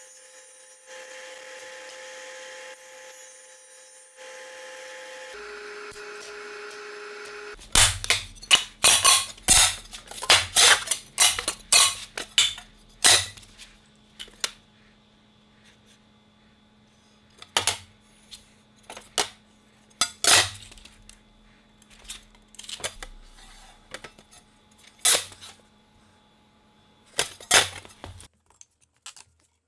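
Aluminium sheet pieces being set down and moved about on a perforated steel welding table, giving a series of sharp metallic clanks and taps. They come in a quick cluster and then scattered ones, after a few seconds of steady machine hum.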